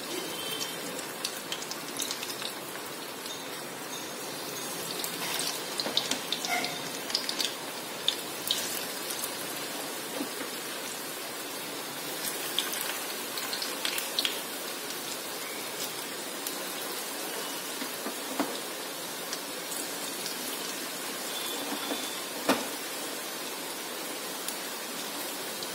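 Hot oil in a kadai sizzling and crackling steadily as balls of fenugreek-and-moong-dal batter (methi gota) deep-fry, with scattered sharper pops.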